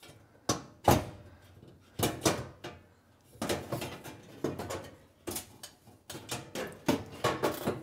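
Metal clanks and scrapes as a gas oven's bake burner tube is lifted and shifted against the sheet-metal oven floor, in an irregular string of sharp knocks.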